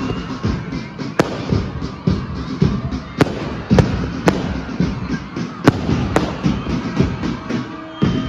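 Fireworks going off overhead: a run of sharp bangs and crackling, with loud cracks every second or two. Music plays in the background.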